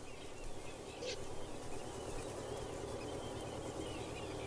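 Small birds chirping and singing in short repeated phrases over a steady outdoor hiss, with a brief sharp sound about a second in.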